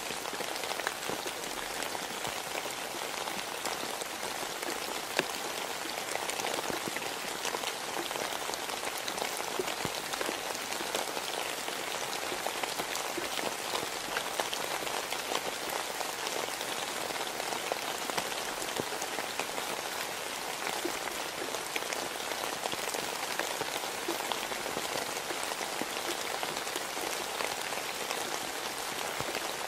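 Steady rain: a dense, even hiss dotted with the ticks of single drops, with one sharper drop tick about five seconds in.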